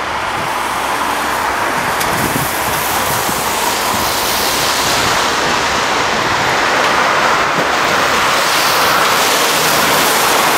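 Gotha articulated tram rolling along street track toward the listener, a steady rushing noise of wheels on rails that slowly grows louder as it approaches.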